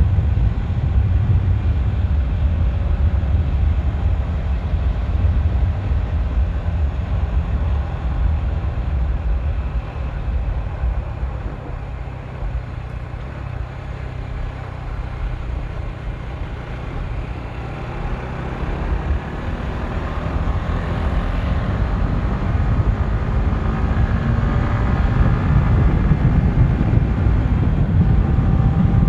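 Honda CBR150R's single-cylinder engine running hard during a top-speed run, under heavy wind buffeting on the microphone. The engine note climbs in pitch through the second half.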